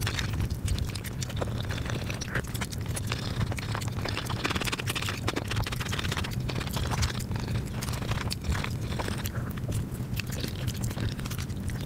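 Close-miked eating sounds sped up five times: rapid, chattering chewing and mouth clicks over spiced rice and curry, with scrapes of a fork and plastic spoon against food containers. A steady low hum sits underneath.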